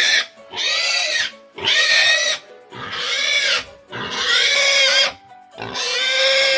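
Pigs squealing loudly, about six high-pitched squeals in a row, each under a second long and rising then falling in pitch.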